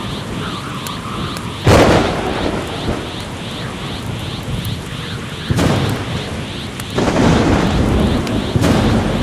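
Thunderstorm sound effect: steady rain with four sudden thunder cracks, the loudest about two seconds in.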